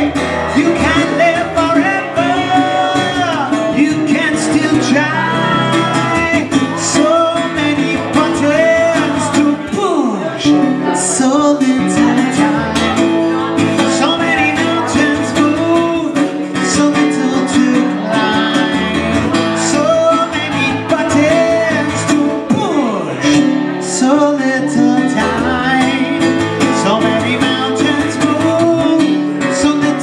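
A man singing over a modified Alvarez MSB1 acoustic piccolo bass guitar, which plays steady plucked low notes. Two long falling pitch slides come about ten seconds in and again about twenty-three seconds in.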